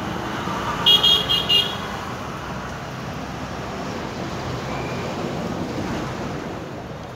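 A vehicle horn tooted four times in quick succession about a second in, high-pitched, over steady road traffic noise.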